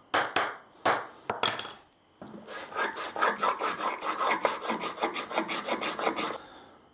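Hand tool cutting a chamfer along the edge of a hardwood block held in a vise: a few separate scraping strokes, then a fast run of even strokes, about five a second, from about two seconds in until shortly before the end.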